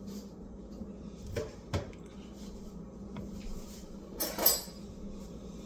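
Kitchen dishes and utensils being handled: two light knocks a little after a second in, then a brief scraping clatter about four seconds in, over a faint steady hum.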